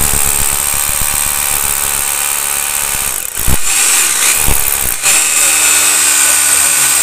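Corded rotary hammer drill boring into a rendered concrete wall with a masonry bit: rapid steady hammering under a high motor whine. It dips briefly about three seconds in, then runs on. The hole is being drilled for polyurethane injection waterproofing.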